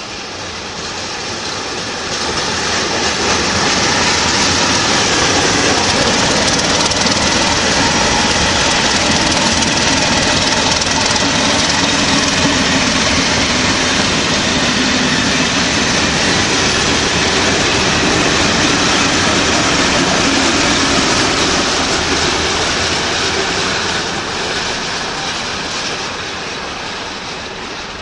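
Passenger train hauled by a ČD class 749 diesel locomotive running past close by: a loud, steady rolling noise that builds over the first few seconds, holds, and fades away over the last several seconds.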